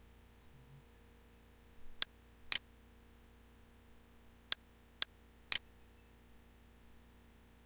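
Computer mouse button clicking five times: two clicks about two seconds in, then three more, about half a second apart, from about four and a half seconds in, over a faint steady electrical hum.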